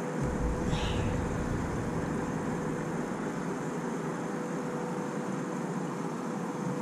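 Steady background hiss with a faint, constant hum running under it.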